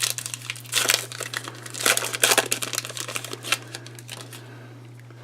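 Card-pack wrapper crinkling and crackling as it is torn open and handled, busy for about three and a half seconds and then dying away. A steady low hum runs beneath it.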